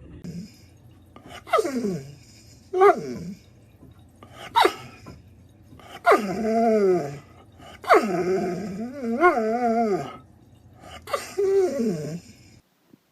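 A dog howling or whining in a series of about six drawn-out calls, each sliding down in pitch. The two longest come in the middle of the run, and the second of them wavers up and down.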